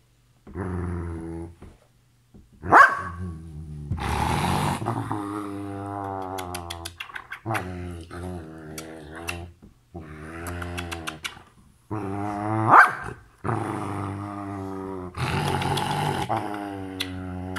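Belgian Malinois growling and grumbling at length, one drawn-out moaning growl after another with short pauses between, and two sharper, louder cries about 3 and 13 seconds in. It is attention-seeking vocalising, the dog demanding kisses.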